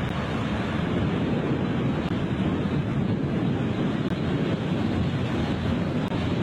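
Heavy breaking surf in a storm, a steady dense rush of waves, with strong wind buffeting the microphone.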